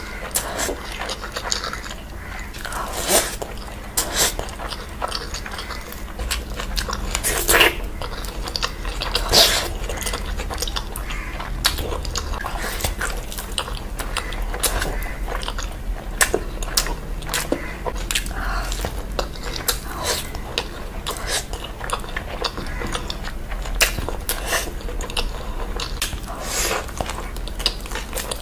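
Close-miked eating sounds: a person chewing and biting mutton curry and rice eaten by hand, with a steady run of wet mouth clicks throughout.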